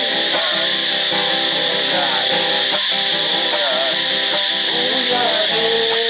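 Men singing a song from lyric sheets to a strummed acoustic guitar, over a steady high hiss.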